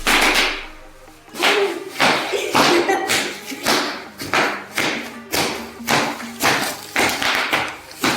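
Bubble wrap being popped by hand, a run of sharp pops about two a second.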